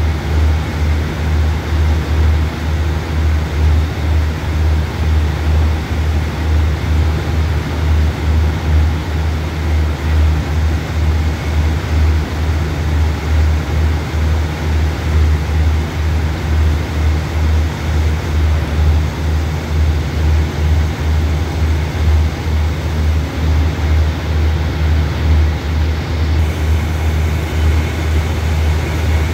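The LD 1103 test train idling while it stands waiting for a signal: a loud, steady, deep rumble that throbs evenly, about two to three pulses a second.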